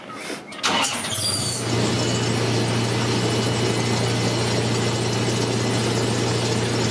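Zoo train's engine running with a steady low drone that sets in about a second and a half in, preceded by a brief high falling squeal.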